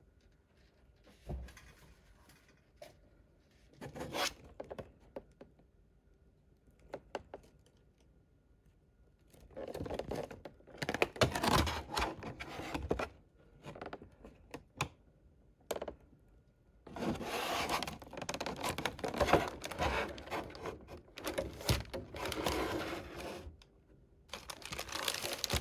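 Packaging of a toy figure being handled and opened: a few light clicks and knocks, then long spells of crinkling, rustling and tearing from about ten seconds in.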